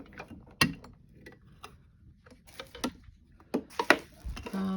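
Scattered clicks and knocks of hard objects being handled and set down, growing into a denser clatter in the last second or so.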